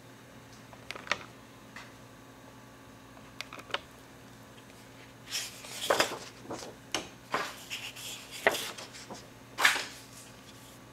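Sheets of drawing paper rustling and snapping as they are handled and turned over one by one from a hand-held stack. There are a few faint ticks first, then a run of louder rustles and crisp snaps of paper in the second half.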